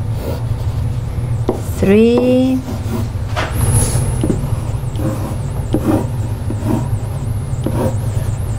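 Pen strokes on a whiteboard: scattered light taps and scrapes as a diagram is drawn, over a steady low hum in the room.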